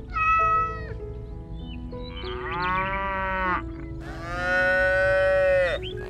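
Three drawn-out animal calls over background music: a short one at the start, a longer one rising and falling in pitch in the middle, and the longest and loudest near the end.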